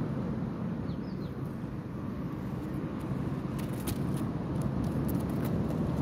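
Steady low rumble of outdoor background noise, with light crackling or rustling clicks from about halfway through and a faint short chirp about a second in.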